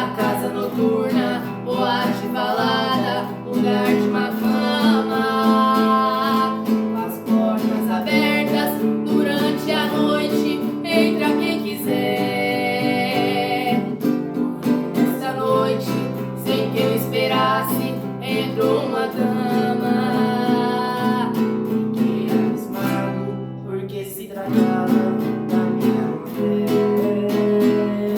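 Music: acoustic guitar strumming with a plucked string melody line over it.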